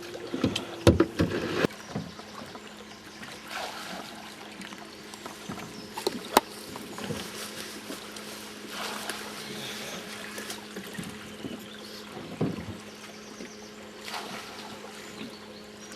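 A steady low hum over a faint background haze, with a few knocks early on and a single sharp click about six seconds in.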